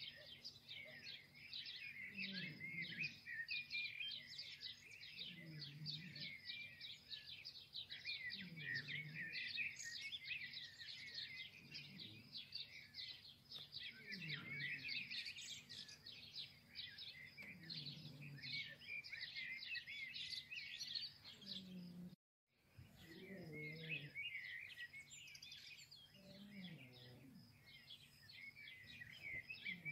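A chorus of many small birds chirping and twittering without pause, with a lower call repeating about every three seconds. The sound cuts out for a moment about two-thirds of the way through.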